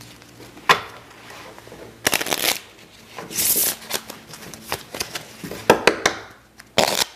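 A deck of playing cards being shuffled and handled: several short rustling runs of the cards with sharp snaps and clicks between them.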